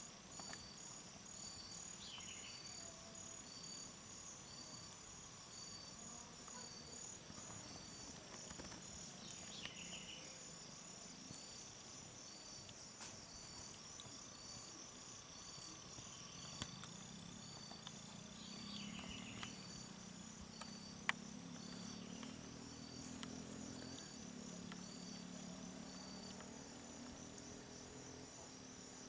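Insects chirring steadily in a high, evenly pulsing trill, with a few short falling chirps over it.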